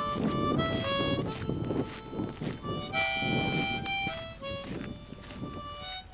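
Instrumental music with a harmonica playing a melody of held notes that change every half second or so.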